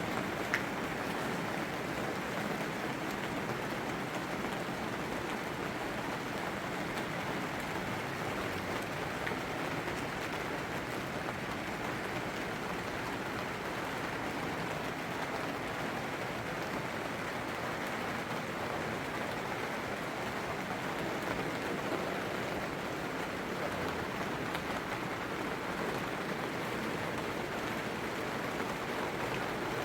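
Steady rain falling, an even hiss of drops with no letup, and one short tap about half a second in.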